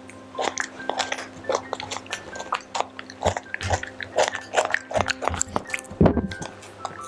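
Close-miked chewing and biting of raw vegetables by a young rhesus macaque: irregular wet crunches and clicks several times a second. About six seconds in there is a louder thump as its mouth bumps the microphone.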